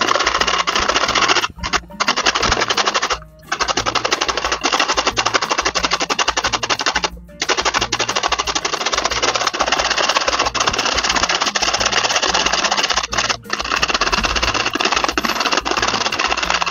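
A carrot being grated fast on a green plastic box grater: a rapid rasping scrape of quick strokes, with a few short pauses. Background music plays underneath.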